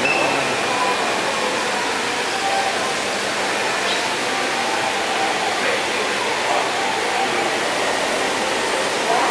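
Steady rush of water falling down an indoor water-wall fountain, with faint voices underneath.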